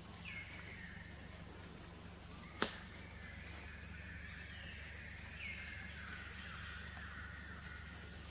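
Short high animal calls that drop in pitch, twice, with a single sharp crack a little under three seconds in that is the loudest sound, over a low steady hum.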